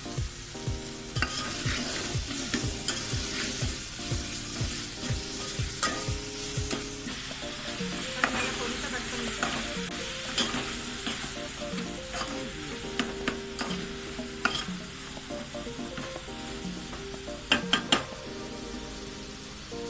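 A metal spoon stirring and scraping food sizzling in a steel cooking pot, with frequent clinks of spoon on metal and a couple of sharp knocks near the end. Background music plays underneath.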